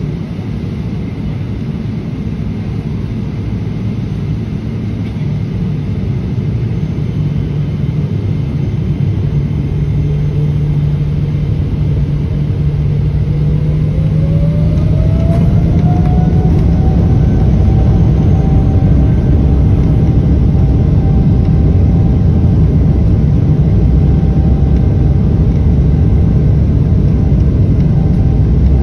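Boeing 777-200ER's twin jet engines heard from inside the cabin, spooling up: about halfway through a whine climbs in pitch and then holds steady while the low rumble grows louder.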